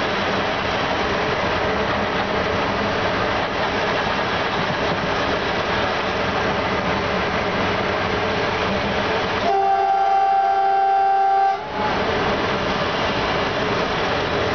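Steady running noise of an electric train heard from the locomotive cab, wheels on rail. About ten seconds in, a train horn gives one steady blast of about two seconds, the loudest sound here.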